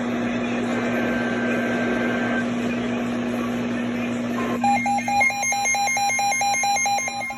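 Weather radio receiver hiss with a steady low hum. About four and a half seconds in, the Emergency Alert System SAME header begins: a rapid digital warble of data tones flipping between pitches many times a second. It is the coded header that opens a severe thunderstorm warning.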